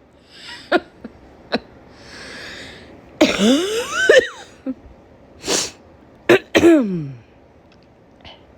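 A woman coughing from a head cold: a string of harsh coughs, the loudest run about three seconds in and another pair near the end, some trailing into a falling voiced groan, with a long breath drawn in about two seconds in.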